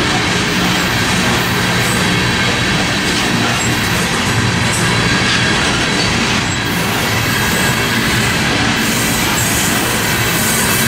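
Tank cars of a Norfolk Southern crude oil train rolling past: a steady rumble of steel wheels on rail with a faint high wheel squeal.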